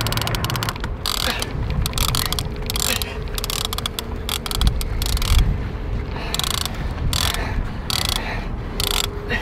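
A heavy 50-wide conventional fishing reel ratcheting and whirring in irregular spurts, its gears and drag working under the pull of a hooked bull shark.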